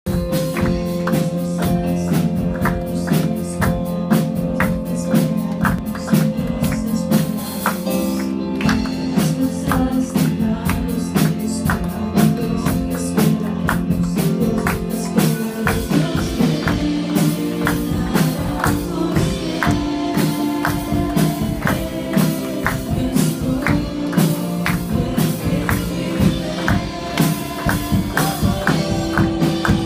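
Live Spanish-language worship song played in the room: a singer and band over a steady, sharp, rhythmic percussive beat, with the congregation joining in.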